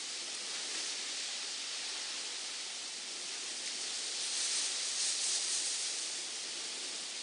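Sea surf breaking into white foam: a steady hiss that swells a little past the middle.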